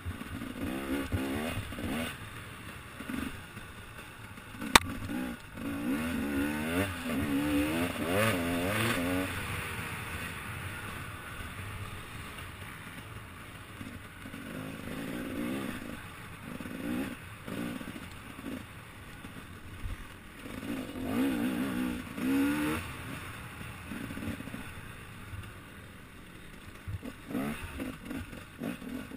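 Enduro motorcycle engine revving up and down over and over as the bike is ridden over rough ground. A single sharp knock about five seconds in is the loudest sound.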